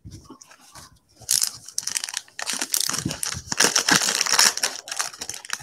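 Shiny trading-card pack wrapper being torn open and crinkled by hand: a few light clicks at first, then a dense crackling run from about a second in, easing off near the end.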